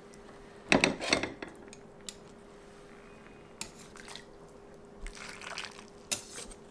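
Ladle clattering against a stainless steel stockpot while chicken and crab are lifted out and set into an earthenware pot, loudest about a second in, then scattered clinks and broth splashing as it is ladled in near the end.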